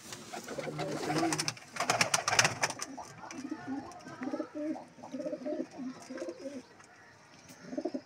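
Domestic pigeons cooing, a run of short repeated low coos through the second half. About two seconds in there is a loud burst of flapping and scuffling as a pigeon is caught by hand.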